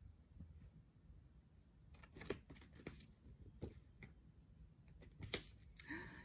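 Pages and cover of a paperback picture book rustling and tapping as it is handled and flipped: a scattered series of short crisp rustles and clicks starting about two seconds in, over a faint background hum.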